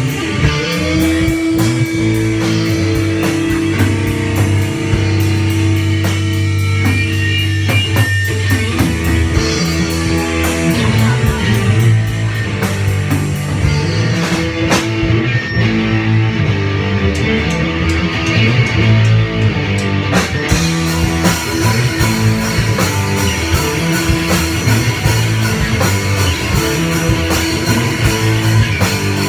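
Live instrumental rock jam on electric guitars and drum kit, played loudly with steady heavy low notes. The cymbals drop out for about six seconds midway, then come back in.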